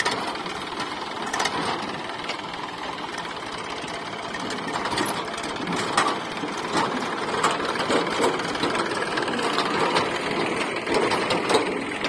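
Eicher 551 tractor's diesel engine running with a steady, rapid clatter.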